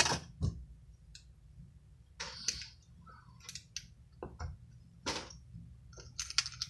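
Small metal hand tools and fishing-reel spool parts being handled on a bench: an irregular series of light clicks, taps and short scrapes as pliers are picked up and a pick is worked into the spool.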